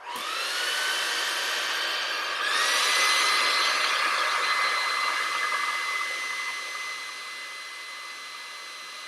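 Handheld hairdryer switched on, its motor whine rising as it spins up, over a steady rush of air. About two and a half seconds in it steps up to a higher pitch and gets louder, then eases somewhat quieter from about six seconds on.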